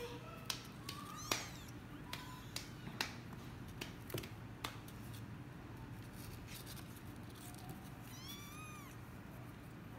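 One-month-old kittens mewing faintly now and then, with one clearer high-pitched mew about eight seconds in. Light taps and scratches of small paws and claws on the cardboard box are heard, mostly in the first half.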